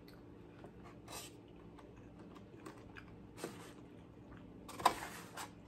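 Hands picking through food in a clear plastic takeout clamshell: soft clicks and three short rustles of the plastic and food, the loudest near the end.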